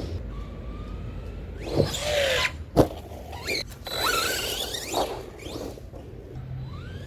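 Brushless electric motor of an ARRMA Typhon 3S RC buggy whining in repeated bursts of acceleration, its pitch rising with each burst. A sharp knock comes a little under three seconds in.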